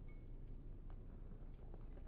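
Faint footsteps and paw scuffs on packed dirt and gravel, a few soft scattered ticks over a low steady rumble.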